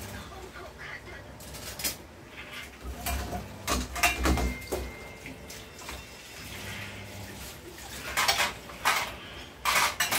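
Cutlery clinking and knocking against dishes, in scattered clusters of sharp clicks, the busiest about four seconds in and again near the end.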